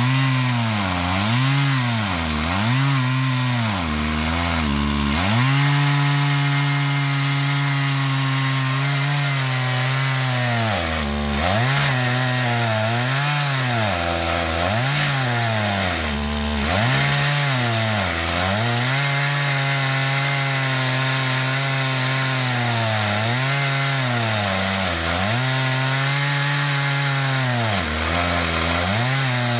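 Stihl MS880 two-stroke chainsaw on a chainsaw mill, ripping a slab lengthwise through a wide willow log. The engine runs at high revs, its pitch dipping and recovering again and again, with a few steadier stretches.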